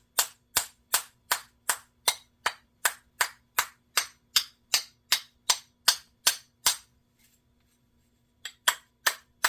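Small hammer tapping out dents in the metal hood of a Tru Temper 1-2-3 spincast reel, which is held in the hand. The taps come quick and even, about two and a half a second, stop about two-thirds of the way through, then resume with a few more taps near the end.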